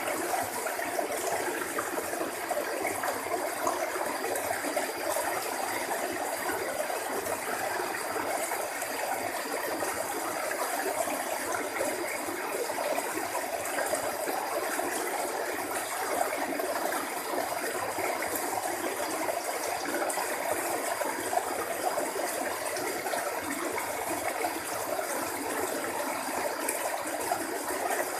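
Steady rush of flowing water in a narrow channel, even and unbroken, with a faint steady high tone above it.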